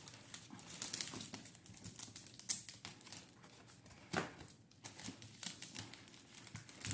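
Craft supplies and packaging being handled on a table: light rustling and small clicks, with a sharper tap about two and a half seconds in and another about four seconds in.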